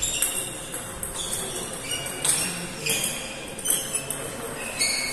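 Table tennis balls knocking against bats and tables: an irregular series of sharp, ringing clicks, about one every half second to a second, echoing in a large hall.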